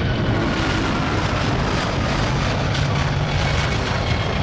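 Airbus A340-600's four jet engines at takeoff power, a steady rushing roar with a faint whine that slides slowly down in pitch.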